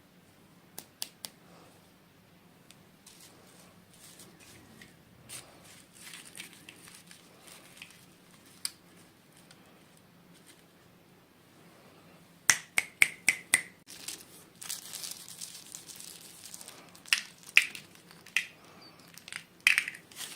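Small plastic toy pieces and packaging handled by hand: sharp clicks and taps, with a quick run of about six clicks a little past halfway and a stretch of rustling just after.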